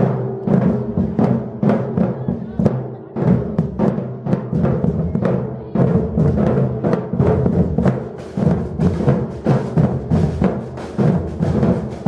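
Batucada percussion ensemble drumming a steady, dense rhythm. The low drums carry through, and sharper, quicker strokes thicken the texture from about eight seconds in.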